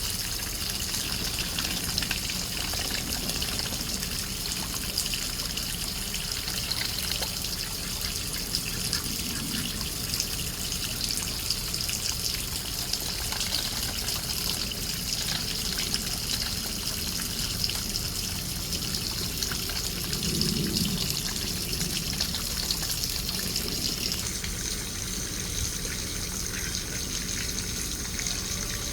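Water trickling and splashing steadily, with a continuous high hiss whose pitch shifts near the end.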